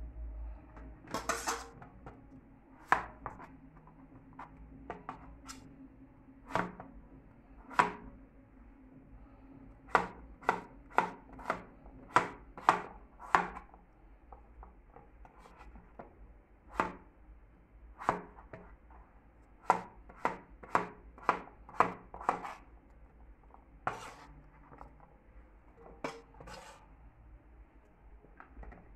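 Chef's knife chopping a peeled potato on a plastic cutting board: sharp single knocks, with quick runs of about two a second.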